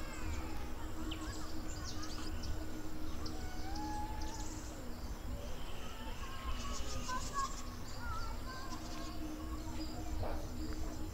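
Rural outdoor ambience: scattered bird chirps and calls, with a rapid high trill about seven seconds in, over a steady low rumble and a faint low held tone that fades midway and returns.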